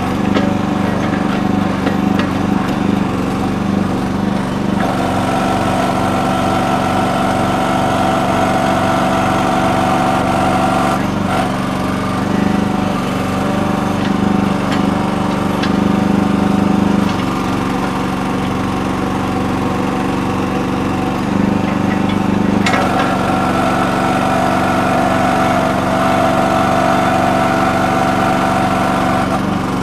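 Small gas engine of a Red Rock towable mini backhoe running steadily as it digs. A higher-pitched whine rides over the engine twice, each time for about six seconds, about five seconds in and again past the middle.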